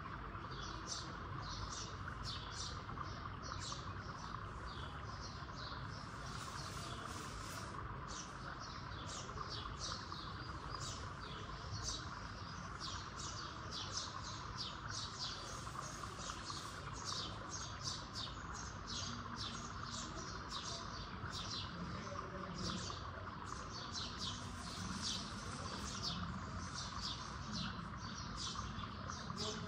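Small birds chirping, several short high chirps a second, over steady background noise.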